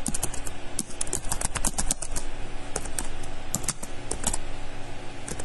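Typing on a computer keyboard: irregular runs of quick keystroke clicks with short pauses between words.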